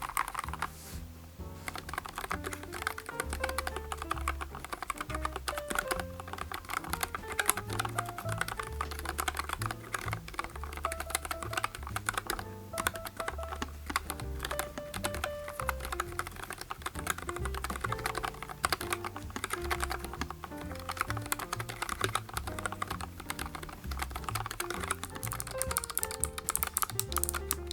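Continuous typing on a NuPhy Air75 low-profile mechanical keyboard with PBT keycaps: a rapid, steady stream of key clicks, with background music underneath.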